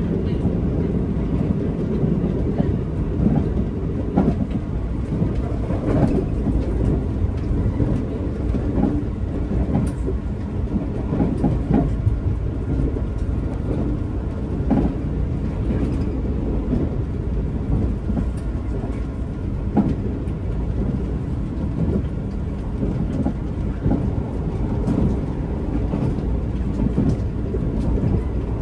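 Running noise inside a JR 381 series limited express electric train car: a steady low rumble of wheels on rail, with scattered irregular clicks and knocks from the track.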